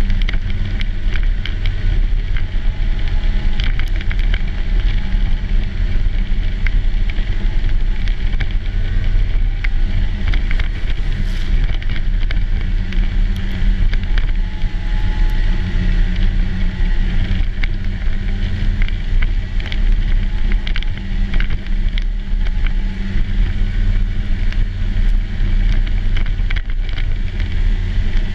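Snowmobile engine running steadily at cruising speed, a constant low drone, with wind and a scatter of small clicks over it.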